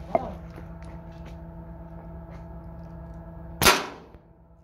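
A single air rifle shot about three and a half seconds in: one sharp crack with a short metallic ring as the pellet strikes the swinging tin can target. A brief sharp sound comes right at the start, over a steady low hum.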